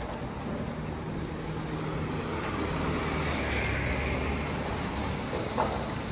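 A motor vehicle passing along a wet street: a low engine hum with tyre hiss that swells towards the middle and eases off again.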